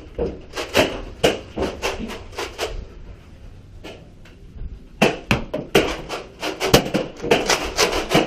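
A quick run of sharp clacks and knocks in two flurries with a short lull between: Nerf blasters firing and foam darts striking a door and walls.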